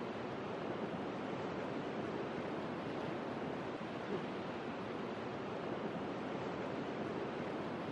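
Small ocean waves breaking and washing onto a sandy beach, a steady even wash of surf.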